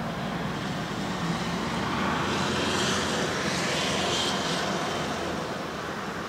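Background noise of a passing vehicle, swelling for a few seconds in the middle and then fading back to a steady hum.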